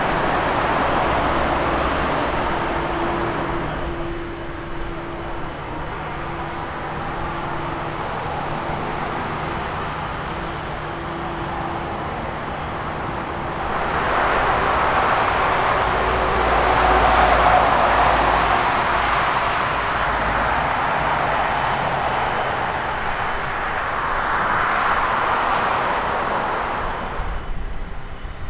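Two jet airliners taxiing one after the other. First a Boeing 767-300ER freighter's engines at taxi power, with a steady hum, easing off after a few seconds. Then, about halfway through, an Airbus A330-200's Rolls-Royce Trent 700 engines come in louder, swelling twice as it rolls past.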